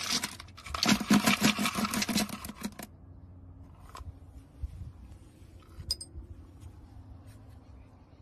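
Dry dog kibble rattling and clattering as a scoop digs into a plastic bin of it. The clatter is dense for about three seconds, then gives way to a few soft clicks.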